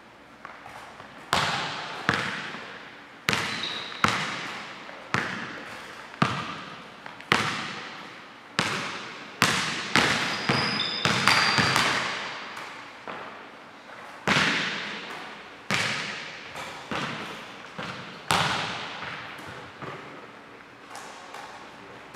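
Basketball bouncing on a hardwood gym floor, roughly once a second, each bounce echoing in the large hall. A couple of brief high sneaker squeaks come about halfway through.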